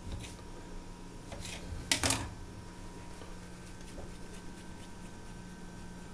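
A kitchen knife clacks sharply once on a granite countertop about two seconds in, with a few faint taps of knife and hands on the stone around it, over a steady background hum.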